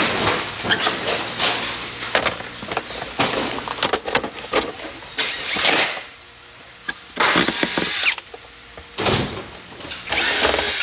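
Workshop tool working in repeated bursts of rasping noise, each lasting about half a second to a second, with short gaps between.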